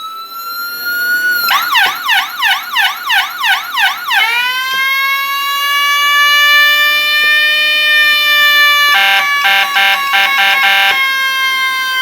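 Whelen Cencom Gold electronic siren cycling through its tones. First comes a slow rising wail, then about two and a half seconds of fast yelp sweeps. From about four seconds in comes the mechanical-siren tone, which winds up quickly and then slowly sinks in pitch, with a stretch of rapid on-off chopping about nine to eleven seconds in.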